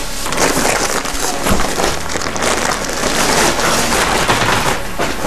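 Clothes and a bag rustling and crackling as they are rummaged through by hand, a dense, irregular rustle.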